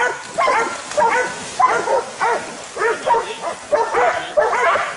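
Dogs barking rapidly and without a break, about three barks a second, as they hold a cornered wild boar at bay.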